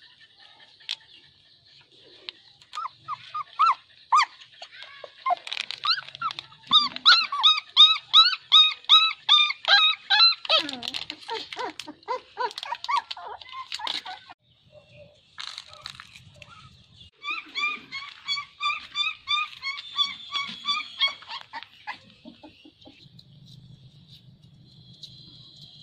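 Puppies whimpering and yipping in rapid runs of short high calls: a long bout in the first half and a shorter one later.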